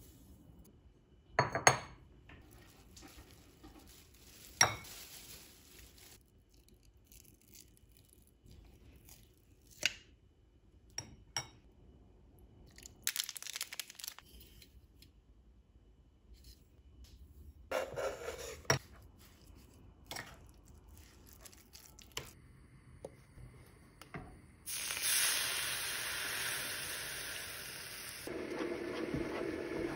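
Kitchen preparation sounds: sharp clinks of a container and spoon against glass and metal bowls, a brief crinkle of a spice packet, and a spoon working through chili paste. About 25 seconds in, a steady hiss starts as a small pan of flour-and-water paste heats on the gas burner, with a wooden spoon stirring it near the end.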